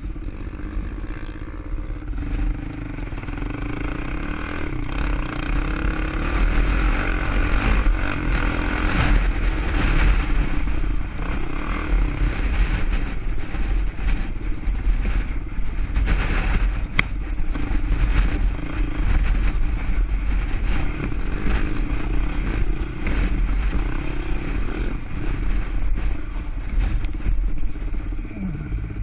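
ATV engine running steadily under way on an off-road trail ride, with a constant low rumble.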